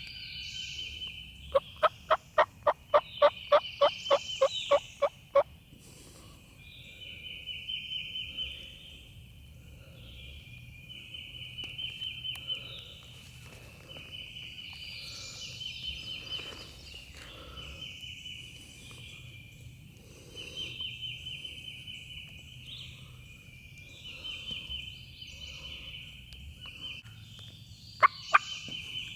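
Wild turkey yelping: a loud series of about fourteen evenly spaced notes, roughly three a second, a couple of seconds in. A high trill repeats in short bursts throughout, and two sharp loud notes come near the end.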